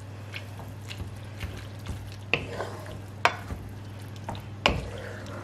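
Wooden spoon stirring spaghetti through a simmering cream sauce in a nonstick frying pan, with a faint hiss from the sauce and the spoon knocking sharply against the pan now and then, loudest about two and a half, three and a quarter and four and a half seconds in. A steady low hum runs underneath.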